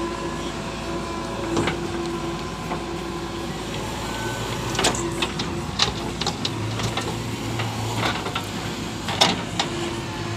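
JCB 3DX backhoe loader's diesel engine running steadily with a held tone while the backhoe arm works a heap of soil. About five sharp knocks and clanks from the bucket and arm linkage sound through it, the loudest about nine seconds in.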